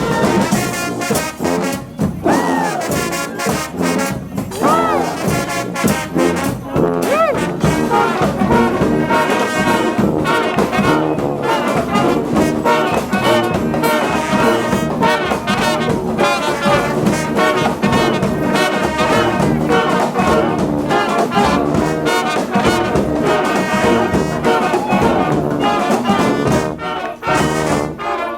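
Brass marching band playing a tune together, with trombones and trumpets over a steady beat. Three sliding falls in pitch come about two and a half seconds apart near the start.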